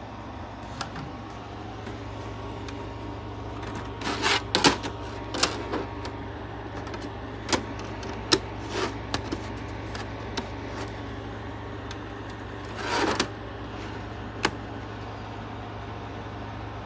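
A disc and its slim plastic DVD case being handled: irregular sharp plastic clicks, loudest in a quick cluster about four seconds in, and a short scraping rustle near the end. A steady low hum runs underneath.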